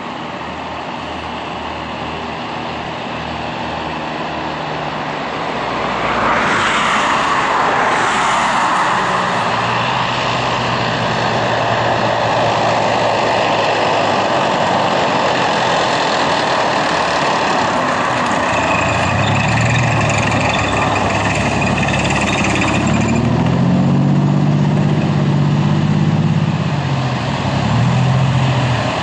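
Military vehicle convoy driving past: tracked armoured vehicles, a Transportpanzer Fuchs 6x6 armoured personnel carrier and Unimog trucks, their diesel engines running and growing louder from about six seconds in. Near the end a heavy engine note rises and falls as a vehicle drives close by.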